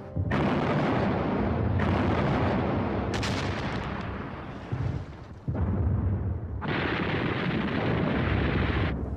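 Battle sound of gunfire and artillery fire: a dense, continuous din with a deep rumble. It changes abruptly every second or two, as if edited in sections, with a short dip about five seconds in.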